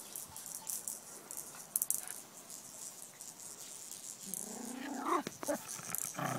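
Jack Russell terrier whining: one drawn-out cry that rises and falls a little past four seconds in, and a second short cry at the end. Scattered light clicks and rustling run underneath.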